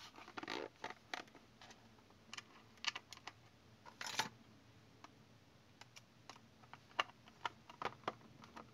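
Faint handling noises from the plastic battery cover of a DT9208A digital multimeter being put back on and pressed into place: scattered light clicks and scrapes, with a short scraping rustle about four seconds in. Near the end come a few sharp ticks as a screwdriver tip is set into the cover's screw.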